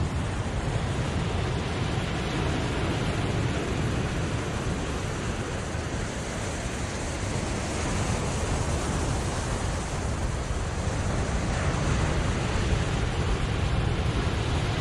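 Surf breaking on a rocky volcanic shore, a steady noise that swells a little about eight seconds in and again near the end, with wind rumbling on the microphone.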